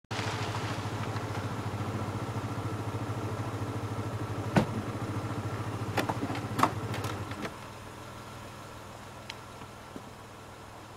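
An engine idling with a rapid, even pulse that stops abruptly about seven and a half seconds in. A few sharp knocks come in the seconds before it stops, the loudest about four and a half seconds in.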